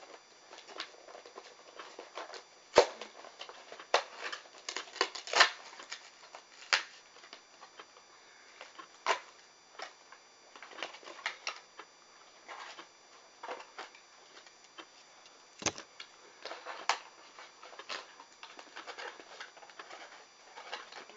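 Toy box packaging being handled and opened by hand: irregular rustles, taps and clicks, with a few sharper clicks scattered through.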